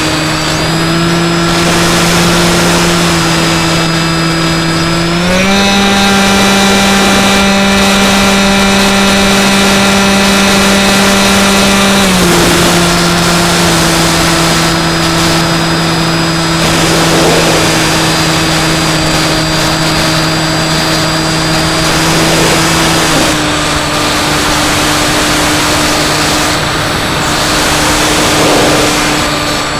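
Electric motor and propeller of a Skywalker X5 flying wing in flight, heard from its onboard camera: a steady motor whine over a rush of air. The pitch steps up about five seconds in as the motor speeds up, drops back around twelve seconds, and dips a little further near twenty-three seconds.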